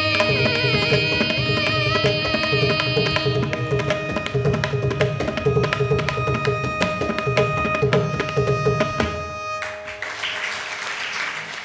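Carnatic ensemble finishing a piece in raga Shanmukhapriya. A violin plays its last phrases over a steady shruti drone, then about five seconds of fast mridangam strokes close out the rhythm. The music stops just before ten seconds in and applause follows.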